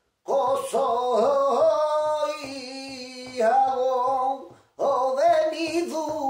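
A man singing flamenco cante unaccompanied: long wavering, ornamented held lines, with a short breath pause a little after halfway. Beneath it, soft regular knocks of a hand rapping on a table keep time.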